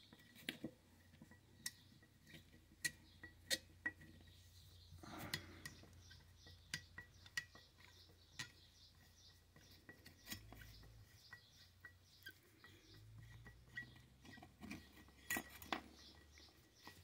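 Faint, scattered clicks and clinks of a steel flathead screwdriver on small screws and sheet-metal parts of an old fare box as the screws are worked loose.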